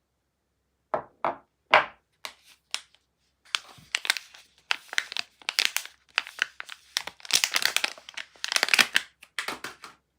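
Soap packaging being unwrapped: three sharp crackles about a second in, then several seconds of close-up crinkling and crumpling of the wrapper.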